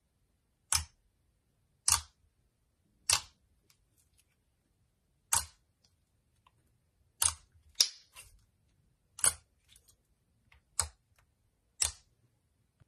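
Glossy slime being poked and pressed with fingertips, giving about nine sharp, short pops, roughly one every second or so.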